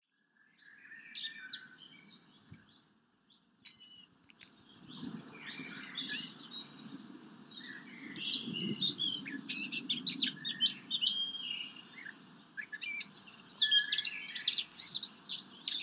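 Small songbirds chirping and trilling in a quick, busy chorus of short calls, over a low steady background rumble that comes in about five seconds in.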